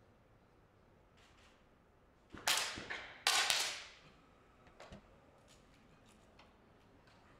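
10 m match air pistols firing in the final: two sharp pops about a second apart, each with a short echoing tail, followed by a few fainter clicks.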